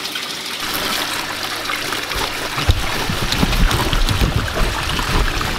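Water trickling and splashing steadily in an aquaponic grow bed. From about two seconds in, low thumps and knocks as the cauliflower's stem is cut and the plant is pulled out of the bed.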